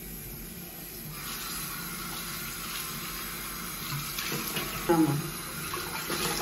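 Bathroom tap running into a sink basin, rising about a second in, with splashing as cupped hands scoop water to rinse face wash off. A brief louder sound comes about five seconds in.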